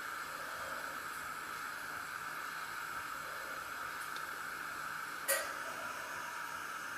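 Steady hiss with one short knock about five seconds in.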